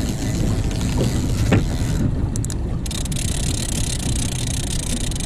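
Small Honda outboard motor running steadily at slow trolling speed on a small boat. A steady hiss joins it a little under three seconds in.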